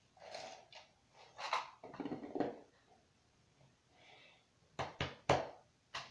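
Handling noises at close range: a few short rustling scuffs, then several sharp knocks near the end.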